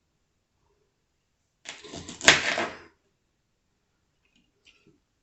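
Kitchen prep on a cutting board: a brief scraping clatter of knife and vegetables about two seconds in, with one sharp knock in the middle of it, then a couple of faint ticks near the end.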